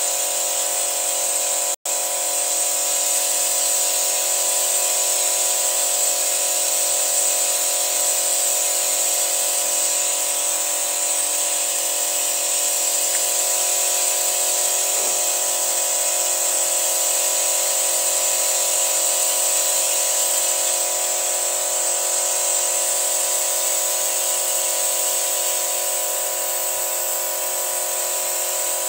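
Petrol car engine running steadily while carbon-cleaner fluid is fed into it from a canister, with a steady hiss over the engine note. The sound cuts out for an instant about two seconds in.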